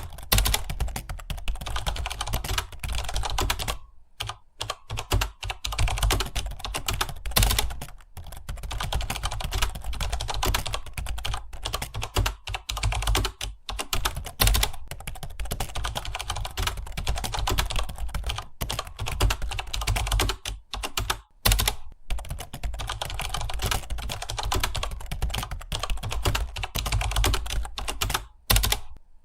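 Fast, continuous typing on a computer keyboard, the key clicks running on with a few brief pauses.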